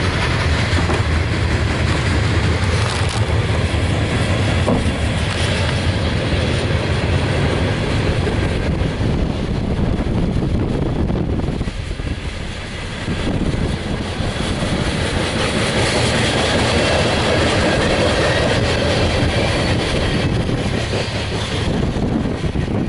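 Loaded coal hopper cars of a CSX freight train rolling past, their wheels making a steady rumble and clatter on the rails, with a brief lull about twelve seconds in.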